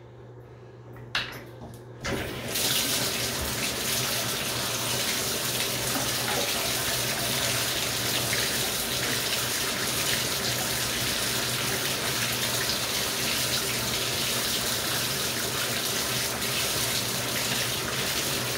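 Bathtub faucet turned on about two seconds in, after a short click, then water running steadily from the tub spout while a clogged hair-catcher drain strainer is rinsed under it.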